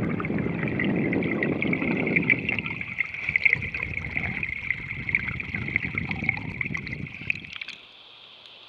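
Underwater water noise as a chatterbait lure is reeled past: a low rushing, gurgling wash with rapid faint ticking above it, which cuts off abruptly near the end, leaving only a steady hiss.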